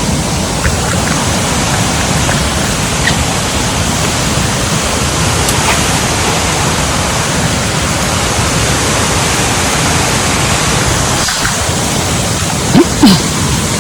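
Loud, steady rush of cascading water, with two brief low thumps near the end.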